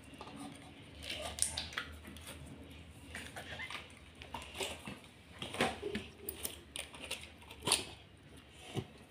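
Slime squelching as it is worked out of clear plastic tubs, with scattered small taps and knocks of the plastic tubs against a stone countertop.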